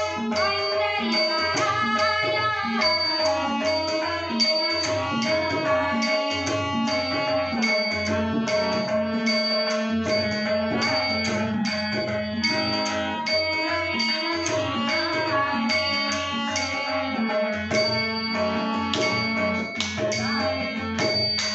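Kirtan devotional music: a tabla keeps a steady, rhythmic beat under long held melodic tones.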